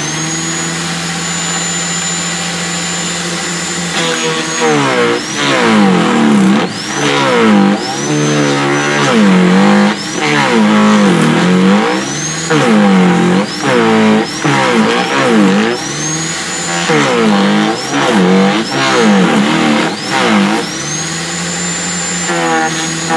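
Sterwins 2500 W electric garden shredder with a knife disc, running free with a high whine, then from about four seconds in chipping branches fed into it: the motor bogs down and recovers again and again, about a dozen times, amid the crackle of wood being cut. Near the end it runs free again.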